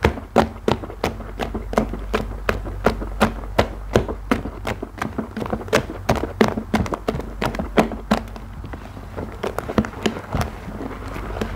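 Rubber-gloved hands squeezing and squishing a thick foam paste, giving sharp squelching pops about three times a second. The pops pause briefly about two-thirds of the way through, then come more sparsely.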